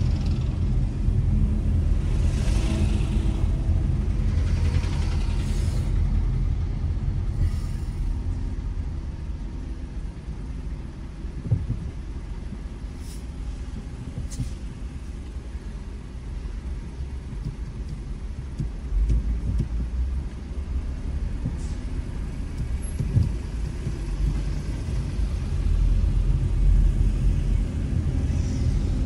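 Low rumble of a car driving slowly in city traffic, heard from inside the cabin, with a couple of short knocks, one about a third of the way in and one near the end.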